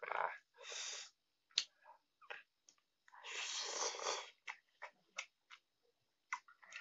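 Close-up mouth sounds of a person eating instant noodles from a fork: short slurps at the start, a long slurp about three seconds in, then chewing with quick wet smacks and clicks.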